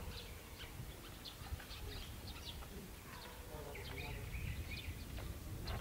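Small birds chirping repeatedly in short calls, with a brief trill about four seconds in, over a steady low rumble of outdoor background noise.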